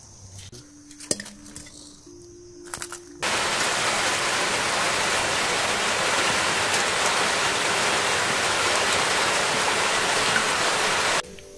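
Steady rush of water as pieces of raw pork are washed by hand in an aluminium bowl, starting abruptly about three seconds in and stopping just before the end. Before it come quieter outdoor sounds with a few light clicks.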